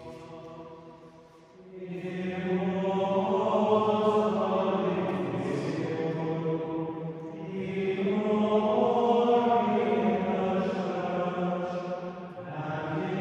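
A choir of voices singing plainchant in unison, with long held notes that move slowly in pitch. It is quieter at first and swells much louder about two seconds in.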